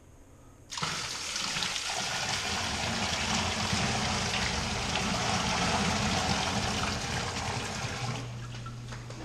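A bucket of water is poured into a sump pit, a rushing splash that starts suddenly about a second in and tails off near the end. As it fades, a steady low hum comes in: the submersible sump pump, on 120-volt house power, running to drain the water.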